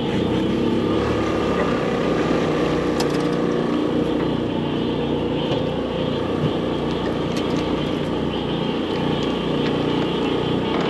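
An engine on a bowfishing boat running steadily, a constant drone with no change in speed.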